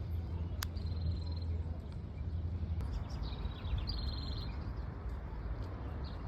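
Birds calling in a park: two quick, rapid trills, about a second in and again around three to four seconds in, over a steady low rumble.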